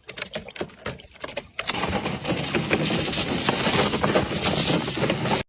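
A few light knocks, then, about a second and a half in, heavy continuous splashing of water in a small pool as an animal thrashes in it. The splashing stops abruptly near the end.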